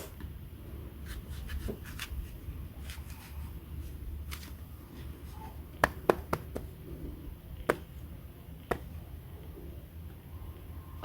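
Small objects being handled on a hard surface: scattered light taps and clicks, with a quick cluster of sharper clicks about halfway through and two single clicks after, over a steady low hum.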